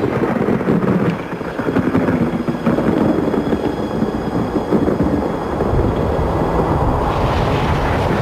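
Tornado sound effect: a loud, steady roar of wind and rumbling that grows harsher and brighter near the end.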